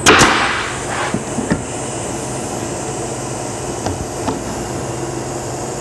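Pneumatic staple gun firing into OSB: a sharp shot with a short hiss of air right at the start and a weaker one about a second later, then a few light clicks, over a steady hum.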